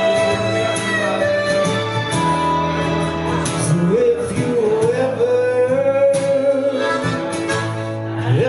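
Acoustic guitar and harmonica playing a song together, the harmonica holding long, wavering melody notes.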